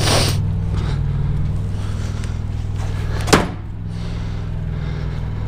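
Semi-truck diesel engine idling steadily, with a rustle at the start and one sharp knock a little over three seconds in.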